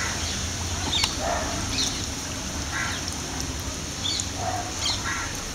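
Chana dal kachoris sizzling steadily as they deep-fry in hot oil, while a bird calls several times in short repeated calls, each louder than the frying.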